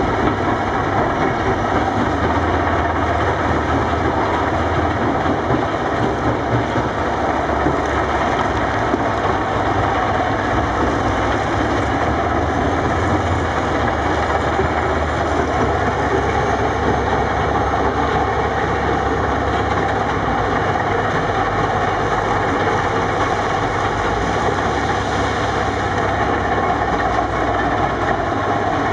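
Steady din of heavy diesel machinery: a tracked mobile rock crusher running close by while a CAT 330D excavator works beside it.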